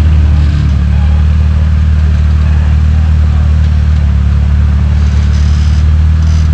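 Rock crawler buggy's engine running steadily at low revs as it crawls over boulders, a loud, even low drone.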